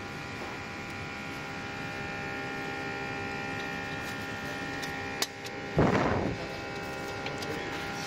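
Steady electric hum of a smoke leak-tester's pump running, filling the engine intake with smoke to find vacuum leaks. A sharp click comes about five seconds in, followed by a short, loud burst of noise.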